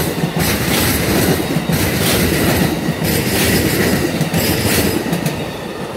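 Amtrak passenger cars rolling past close by: a steady rumble of steel wheels on rail with repeated clacks, easing off near the end as the tail of the train goes by.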